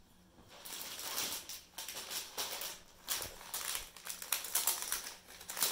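Rustling and crinkling of suit fabric being handled and unfolded: a run of short, irregular rustles starting about half a second in.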